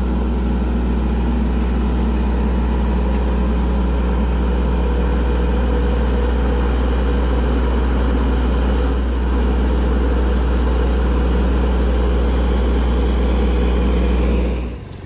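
Compact tractor engine idling steadily while its three-point hitch lowers a hanging hog into a scalding trough; the engine sound drops away sharply near the end.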